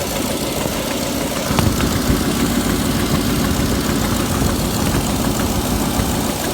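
Ford 5.4-litre Triton three-valve V8 idling roughly, its idle unsteady from a large vacuum leak: the rubber vacuum line from the brake booster has popped off the back of the intake manifold.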